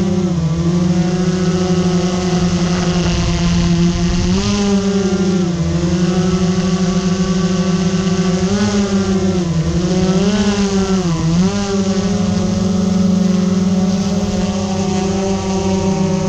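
Multirotor drone's electric motors and propellers buzzing steadily, the pitch dipping and climbing back several times as the throttle changes.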